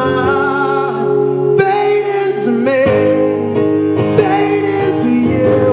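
Male vocalist singing live over his own strummed acoustic guitar. At the start the voice holds a long note with vibrato.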